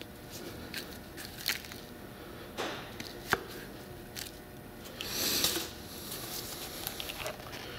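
The plastic shell halves of a cut-open emissions charcoal canister being handled in gloved hands: scattered clicks and clacks as the halves knock together, with gritty scraping from the carbon dust on them. A sharp click comes a little past a third of the way in, and a longer scrape a bit past the middle.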